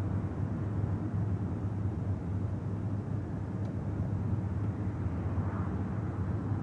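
Steady low rumble of a moving car heard from inside the cabin: engine and road noise at an even cruising pace.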